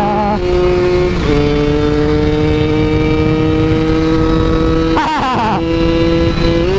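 Motorcycle engine running at a steady speed while riding, its note dropping slightly a little over a second in, over low wind rumble on the microphone; the note wavers briefly about five seconds in.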